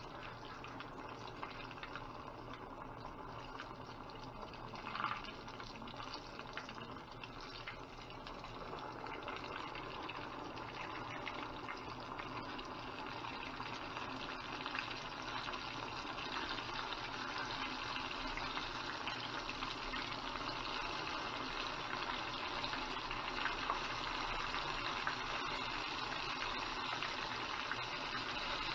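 Flour-coated chicken back pieces deep-frying in hot oil in a stainless steel pan: a steady sizzle and bubbling that grows gradually louder as more pieces go in.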